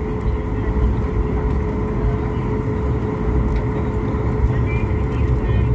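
Steady airliner cabin noise as the jet taxis: a low rumble of engines and airflow with a steady whine on top.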